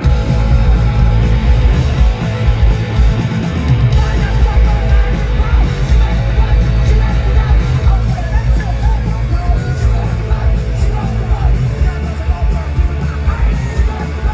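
Live punk rock band playing loud, with electric guitars, bass and drums and a singer's vocals, heard from among the audience.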